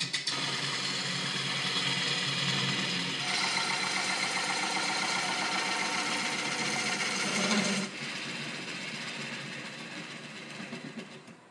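LumberJack VSL305 wood lathe running with a bowl gouge cutting into a spinning oak and meranti bowl blank, a hissing, rasping cut over a steady motor hum. The cutting noise gets louder about three seconds in, then drops away about eight seconds in.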